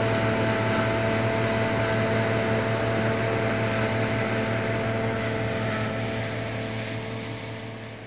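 Dronningborg 4500 combine harvester working in the field: a steady hum of its engine and threshing machinery, fading out near the end.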